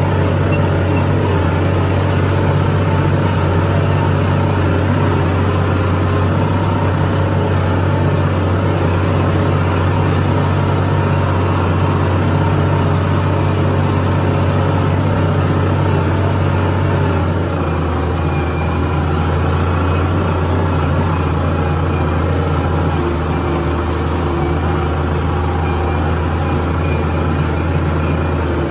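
Farm tractor's diesel engine running steadily, heard from the driver's seat; its note drops a little about two-thirds of the way through.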